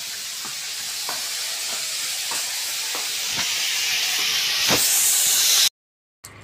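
Food frying in hot oil in a pan: a steady sizzling hiss that grows louder, with scattered sharp pops. It cuts off abruptly near the end.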